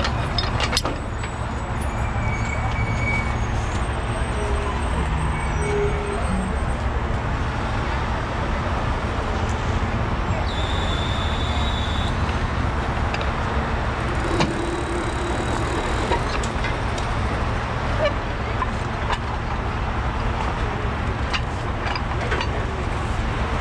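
Heavy rotator tow truck's diesel engine idling steadily, with a few sharp metal clinks from hooks and chains being rigged.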